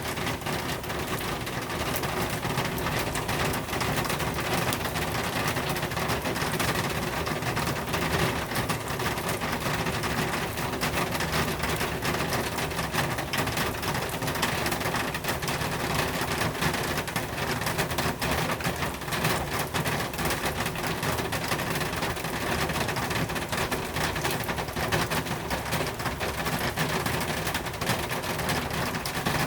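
Steady rain falling, a dense, unbroken patter of drops.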